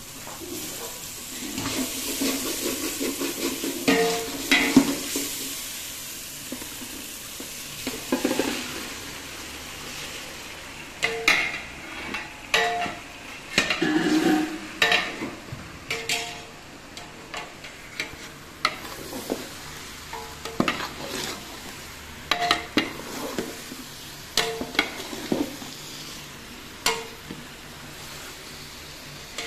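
Onions and chicken pieces sizzling in oil in a large aluminium pot while a long steel spatula stirs and scrapes through them. The spatula repeatedly knocks against the pot, which rings briefly with each strike; the strikes come thick and fast through the second half.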